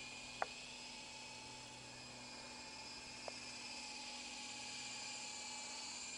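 Volitation 3-channel RC helicopter in flight, its electric motors and rotors giving a steady high whine that wavers slightly in pitch. Two short clicks sound, one about half a second in and a fainter one around the middle.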